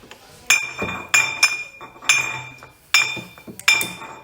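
A glass tapped about six times at an uneven pace, each tap ringing at the same high pitch.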